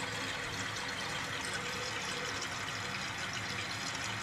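Toilet tank refilling through a newly installed float-less fill valve after the water supply is turned back on: a steady rush of water into the tank.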